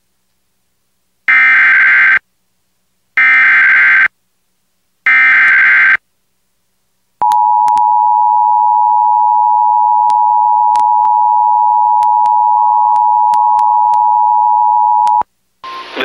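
Emergency Alert System activation: three bursts of SAME header data tones, each just under a second, followed by the steady two-tone EAS attention signal (853 and 960 Hz) for about eight seconds. This signals the start of a severe thunderstorm warning broadcast.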